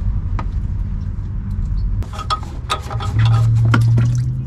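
Clicks and knocks of pliers on a spring hose clamp and the lower radiator hose being worked off, over a low rumble, with a loud steady low hum for under a second near the end.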